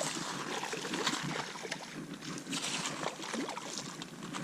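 Creek water splashing and trickling, with scattered small clicks and knocks.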